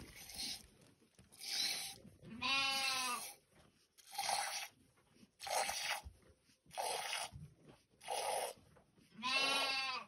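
A goat being milked by hand: short hissing squirts of milk about once a second, with the goat bleating twice.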